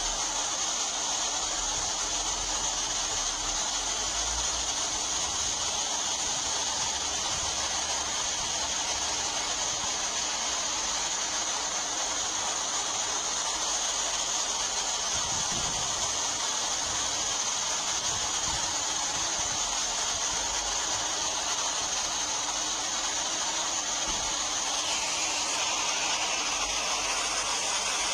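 Steady rush of river rapids, white water pouring over rocks.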